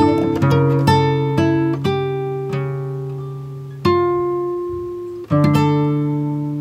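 Background music of plucked notes. Chords struck about four and five seconds in ring out and slowly fade.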